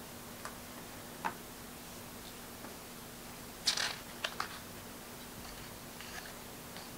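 Pages of a hardcover picture book being turned by hand: a few light taps, then a short swish of paper a little past halfway followed by two quick clicks.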